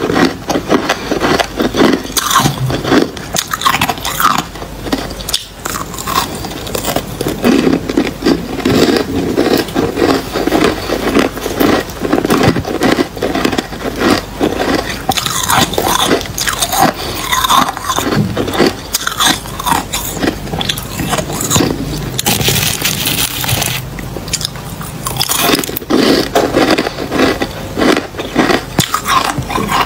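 Close-miked biting and chewing of soft, granular freezer frost: rapid, continuous crunching and crackling, with one longer, hissier scrape about three quarters of the way through.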